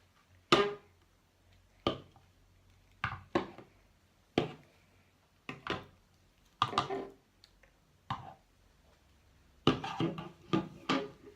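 Plastic toy horse knocked against a hard surface as it is made to gallop and jump: a run of about a dozen sharp knocks at irregular spacing, some in quick pairs, with a close cluster near the end.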